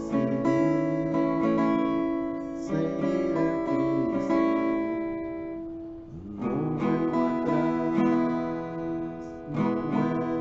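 Acoustic guitar strummed slowly in a down-and-up pattern, each chord left ringing. About six seconds in the ringing dies down before the strumming picks up again.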